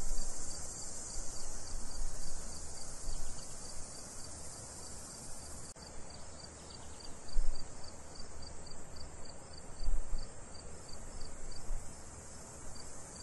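Crickets chirping steadily: a high, continuous trill with regular chirps about four a second. A few low thumps sound under it, the loudest about seven and a half and ten seconds in.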